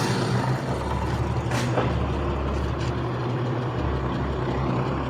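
A heavy engine running steadily at a low idle-like drone, with a short sharp sound about a second and a half in and a fainter one near three seconds.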